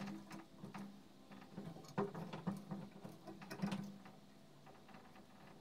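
Small clicks, ticks and scrapes from electrical wire being handled and twisted at the mouth of a metal lamp tube. The sounds are close and irregular and die away about four seconds in.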